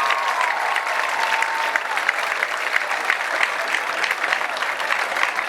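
Crowd applauding with dense, steady clapping. A long held cheer rings over it and fades out about two seconds in.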